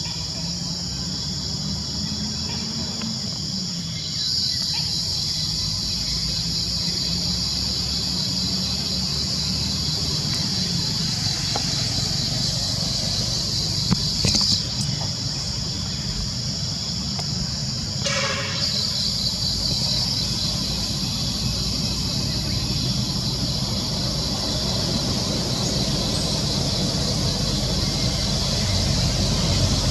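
A steady high-pitched drone of insects over a low engine rumble of passing vehicles, which gets louder near the end. About 18 seconds in, a brief sound falls in pitch.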